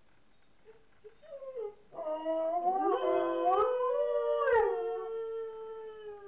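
Two mixed-breed dogs left home alone howling together. Short rising notes start about a second in and grow into long, wavering howls whose pitches overlap and cross. The howls are loudest in the middle and trail off near the end.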